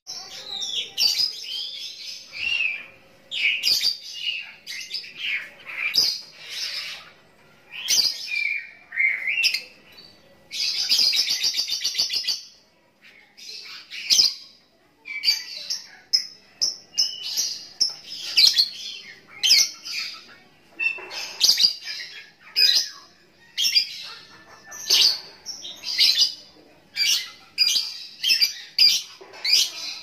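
Lovebird chirping and singing in quick runs of short, high chirps and sweeping notes, with one long, rapid trill lasting about two seconds about ten seconds in.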